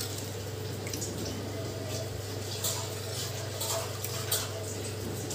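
Steel ladle stirring white gourd and jaggery syrup bubbling in a steel pan: soft liquid bubbling with light clicks and scrapes of the ladle against the pan, over a steady low hum.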